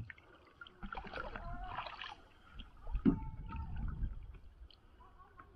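Water swishing and lapping against a plastic kayak's hull as it drifts down the river, with a single sharp knock on the hull about three seconds in.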